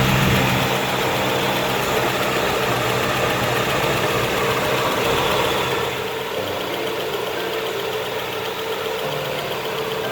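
1998 Nissan Sunny B14's engine idling steadily with the A/C compressor running on its new clutch coil, the system freshly regassed. About six seconds in the level drops slightly and the low hum changes.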